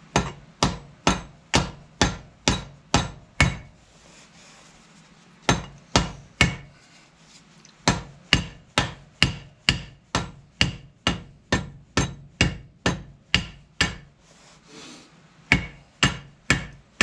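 Hammer blows on a bolt used as a rivet set, closing the rivets that hold a new lining on a tractor brake shoe clamped in a vice. Sharp strikes come about two a second in runs of several, with brief pauses between runs.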